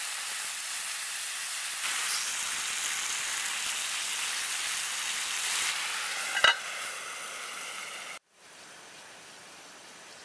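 Potato slices sizzling as they fry in hot oil in a skillet on a camping gas stove. About six and a half seconds in, an enamel lid clanks onto the pan with a brief ring. The loud sizzle cuts off suddenly a little later, leaving a fainter steady hiss.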